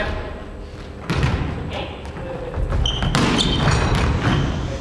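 Volleyball being struck in a block-and-receive drill: a sharp smack about a second in, then a cluster of hits and thuds from about three seconds in, echoing in a large gym hall.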